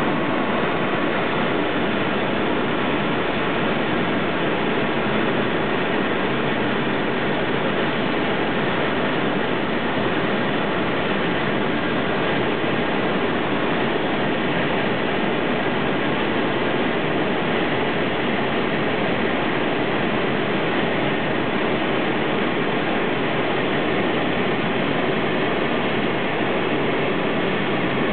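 Steady drone of a TL StingSport light aircraft's Rotax 912 engine and propeller, with wind noise, heard from inside the cockpit in flight.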